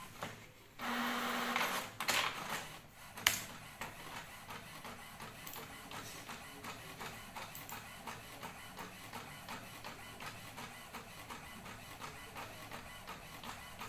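Office printer at work: a loud whirring stretch about a second in, a couple of sharp clicks, then steady rapid ticking as it prints.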